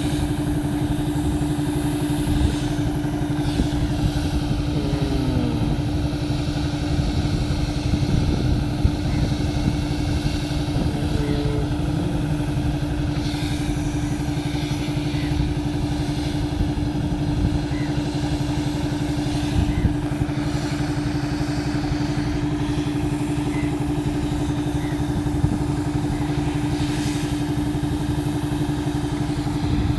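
Road roller's engine running steadily with a constant droning hum and no change in speed.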